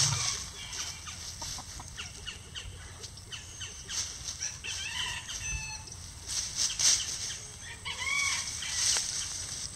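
Free-range chickens scratching and foraging in dry leaves and twigs, a run of rustling crackles, with hens giving short clucking calls about five seconds in and again around eight seconds.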